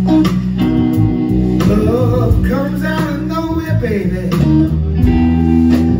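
Live electric blues band playing: two electric guitars over bass guitar, with wavering, vibrato-laden melody notes in the middle.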